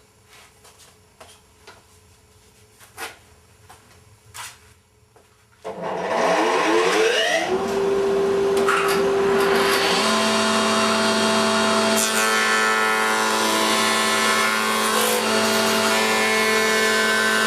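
A few light clicks and knocks, then the planer (jointer) is switched on about six seconds in; its motor and cutterblock wind up to speed with a rising whine and then run steadily with a loud, even hum.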